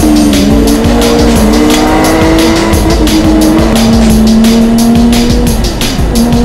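Car tyres squealing in long, pitch-shifting squeals as the car drifts through corners, under a fast-beat music track.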